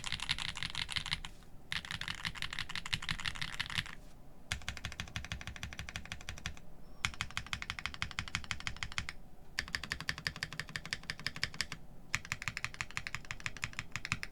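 Fast typing on a Monstergear Sangeo65 mechanical keyboard with an aluminium plate, lubed KTT Grapefruit linear switches and GMK keycaps, a clacky sound. It comes in runs of a few seconds broken by brief pauses.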